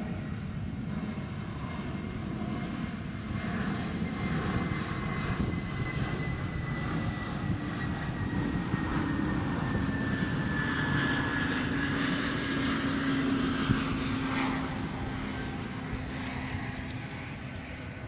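An airplane's engine drone passing by, swelling to its loudest about thirteen seconds in and then fading, with a faint whine that slowly falls in pitch.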